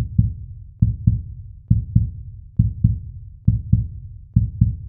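Normal heart sounds, 'lub dub': paired low thumps in a steady rhythm, about one pair every 0.9 seconds. In each pair the first thump is S1, the closure of the mitral and tricuspid valves, and the second is S2, the closure of the aortic and pulmonary valves.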